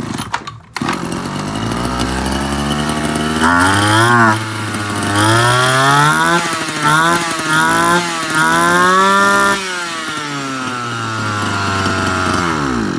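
Petrol brush cutter engine started and run, revved up and down several times in the middle, then dropping back and cutting off near the end. Its carburettor air setting has not been adjusted.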